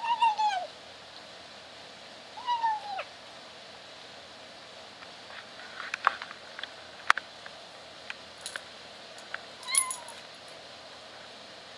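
Kitten meowing while it eats: three short meows, each falling in pitch, one at the start, one about two and a half seconds in and a shorter one near the end. Sharp clicks come in between, loudest about seven seconds in.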